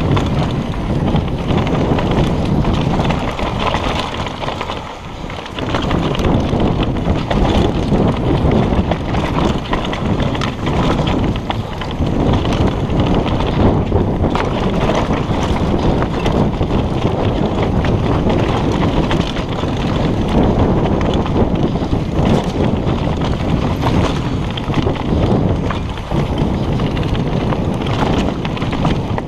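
Mountain bike ridden fast downhill over dry dirt and rock: tyres crunching and the bike rattling, under steady wind rush on the camera's microphone. It eases briefly about five seconds in.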